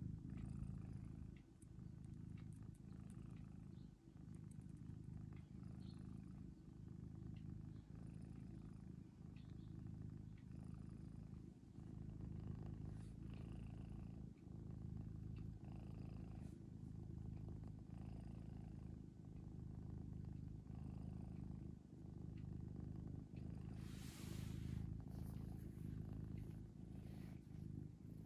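Domestic ginger cat purring steadily, a low rumble that dips briefly about every two seconds. Shortly before the end comes a brief rustle.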